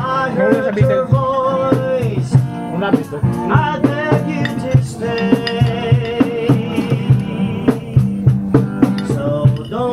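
Music: a song with a steady drum beat under long held melody notes.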